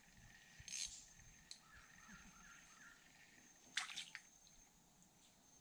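Near silence: faint outdoor ambience with a thin, steady high insect-like whine, broken by two brief soft noises, about a second in and again past the middle.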